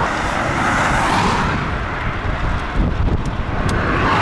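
Wind rushing over the microphone of a moving bicycle on a highway, with the tyre hiss of passing car traffic swelling near the start and again near the end.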